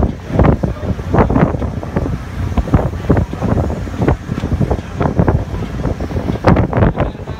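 Wind buffeting the microphone on the open deck of a moving ferry: loud, irregular gusts.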